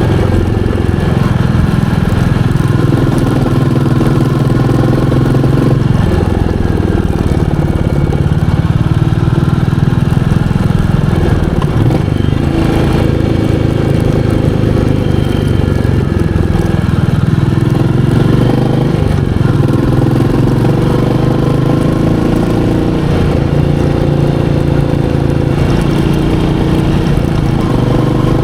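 Royal Enfield Meteor 350's 349 cc single-cylinder engine running steadily on the move. Its note shifts a few times as the revs change.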